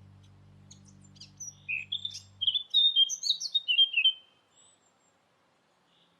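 A songbird singing a rapid phrase of varied chirps and whistles, loudest about three seconds in and stopping after about four seconds. Low background music fades out under its first half.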